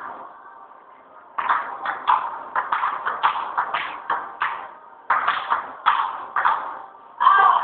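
Table tennis rally: a ping-pong ball clicking off the paddles and the table in quick, irregular succession, a few hits a second, starting about a second and a half in. A louder, longer burst comes near the end.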